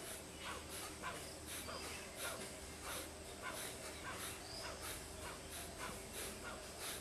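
Kapalbhati breathing: short, forceful exhalations pushed out through the nose in a steady rhythm, about two a second.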